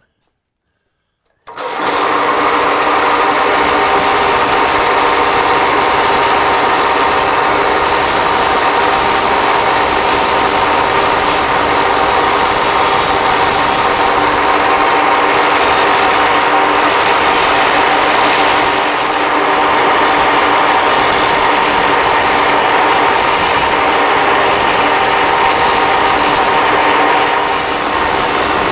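Angle grinder starting up about a second and a half in and running steadily as it grinds down a fresh weld on a steel part, evening it out so it fits its hole.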